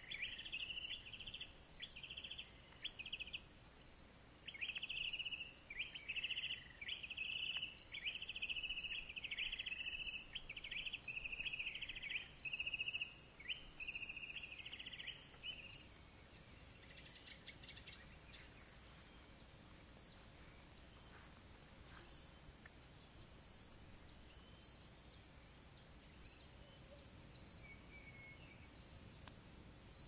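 Steady high-pitched chorus of crickets and cicadas, with a bird repeating a short gliding call about once a second through the first half, falling silent about halfway; from then on the insect drone is a little louder.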